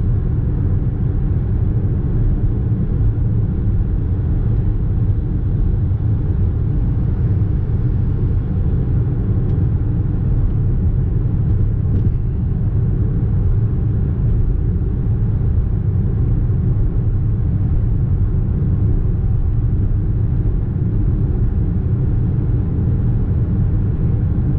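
Steady low rumble of road and engine noise heard inside a car's cabin while driving at highway speed.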